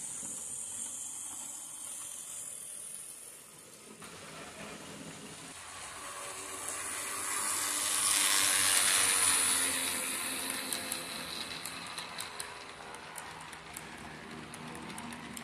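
HO-scale model electric train running past on its track: its motor and wheel noise build to a peak about eight to nine seconds in, then ease off, with a run of rapid clicks from the wheels over the rail joints near the end. A steady hiss fills the first few seconds.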